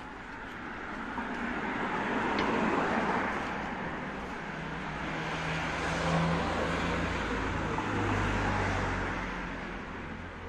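Town street traffic: cars passing on the road alongside, the tyre and engine noise rising and fading twice, loudest about three seconds in and again around six to eight seconds, with a low engine hum in the second pass.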